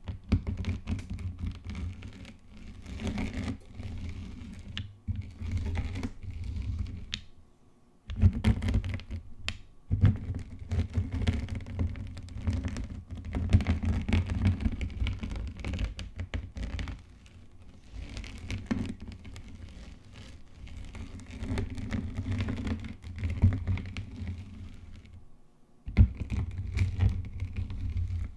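Gym chalk being rolled and crushed, giving a dense run of crunching, popping clicks with a low thudding underneath. It stops briefly twice.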